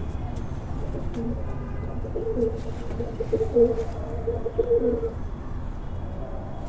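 Homing pigeons cooing: a run of low, throbbing coos from about a second in until about five seconds in, over a steady low rumble.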